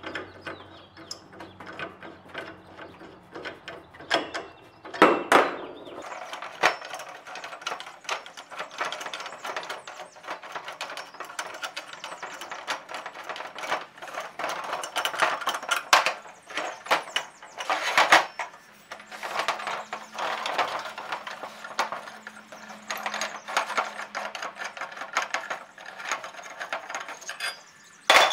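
Metal lamp-base parts being unscrewed and handled on a steel table: continuous scraping, clicking and rattling of the threaded tubes, with a few louder metal knocks.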